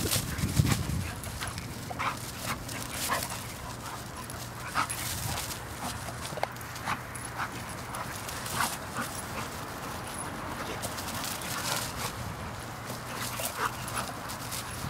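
Pit bulls chasing a flirt-pole lure, giving short excited whines and yips, with many short clicks and scuffs scattered throughout.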